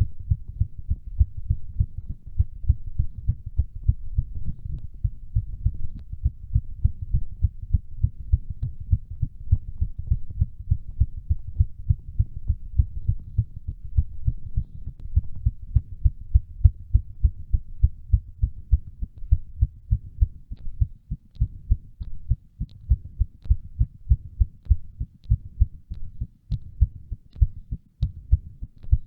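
Human heartbeat beating fast during a workout: a rapid, even run of low thuds in quick succession.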